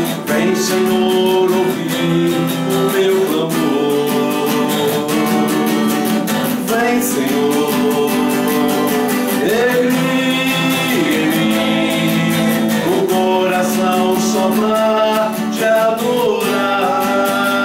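Gospel song: acoustic guitar strumming under a singing voice, with backing instruments.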